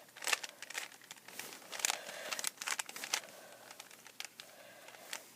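Plastic Rubik's cube being turned by hand: quick, irregular clicks and rustles of the layers, dense at first and thinning out after about three seconds.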